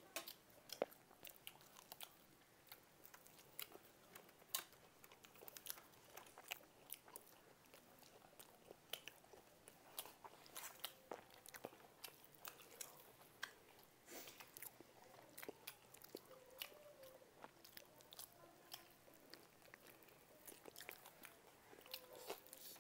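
Faint close-up eating sounds: chewing and crunching of food, with many small sharp clicks and taps.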